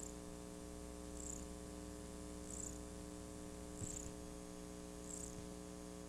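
Steady electrical mains hum with a ladder of overtones on a blank stretch of videotape, with a faint high chirp repeating about every second and a third and a single soft tick near the middle.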